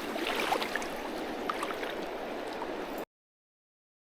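Creek water running steadily, with a few faint ticks over it; the sound cuts off abruptly to dead silence about three seconds in.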